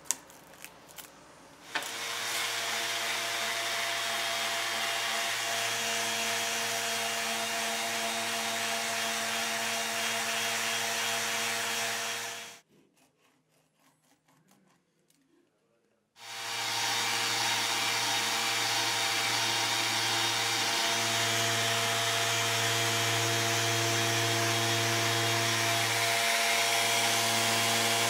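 Electric random orbital sander running steadily against wood, a constant whirr with a steady tone underneath. It stops about twelve seconds in and starts again a few seconds later.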